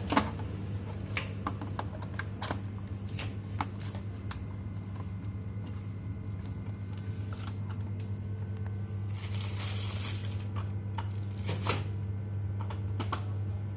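Scattered plastic clicks and taps, with a brief scraping rustle about ten seconds in, as a waste toner container is handled and fitted into a Kyocera M3860 copier. A steady low hum runs underneath.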